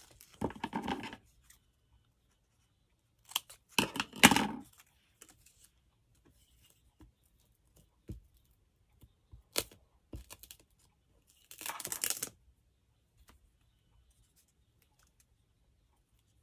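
Paper scrap strips being torn by hand in several short bursts, the loudest about four seconds in, with a few light taps between.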